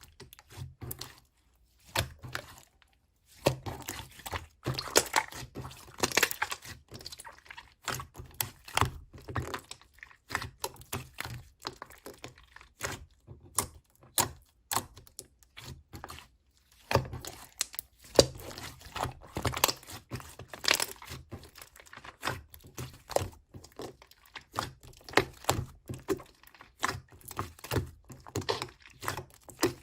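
Slime being squeezed and pressed by hand: rapid, irregular clicking and crackling pops of trapped air, in uneven bursts with a couple of brief pauses.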